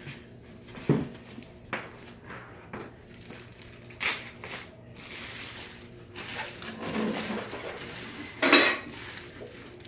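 Clear plastic bag crinkling and rustling around a cardboard drone box as it is handled and pulled free, with scattered knocks of the box. The loudest bump comes near the end as the box is set down on the table.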